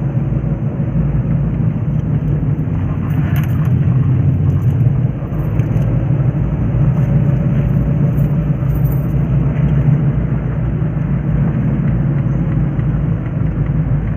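Car engine and tyre noise heard from inside the cabin while driving, a loud, steady low rumble with a few faint clicks.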